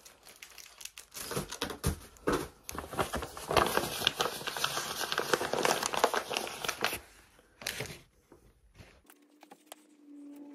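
Plastic packaging crinkling and rustling in a run of irregular crackles as small items are handled and packed, stopping about eight seconds in.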